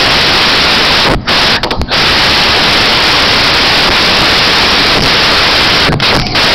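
Loud, steady static hiss from the recording, broken by a few brief dropouts about a second in and again near the end.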